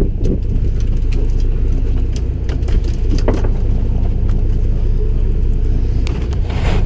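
Fishing boat's engine running with a steady low rumble, with scattered knocks and clicks of gear being handled on deck.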